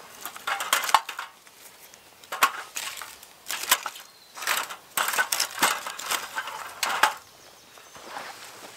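Birch bark and small sticks being pushed into a folding titanium wood stove by hand: crackling, rustling bark with irregular sharp clicks and light knocks of wood against the thin metal walls.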